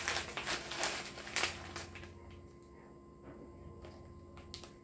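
Packaged food being handled and rummaged out of a cardboard box: several quick rustles and crinkles of plastic and cardboard packaging in the first two seconds, then quieter handling with a brief rustle near the end.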